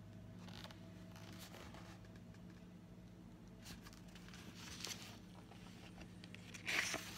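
Pages of a hardback picture book being handled and turned: soft paper rustles and light scrapes, with the loudest rustle near the end. A steady low hum runs under it.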